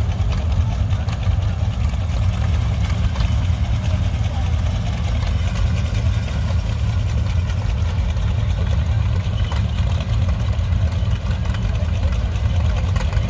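Tractor engines idling in a steady low hum, among them an antique Oliver row-crop tractor waiting at the pulling sled, with faint voices of the crowd.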